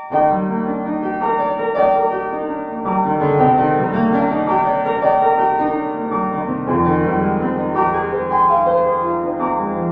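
Background piano music: a slow melody of held notes over lower chords.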